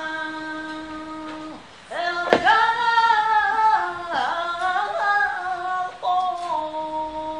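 A woman singing flamenco siguiriya unaccompanied, in long held notes that waver and slide in pitch. She breaks off briefly near two seconds in and comes back louder, with a single sharp knock as she resumes.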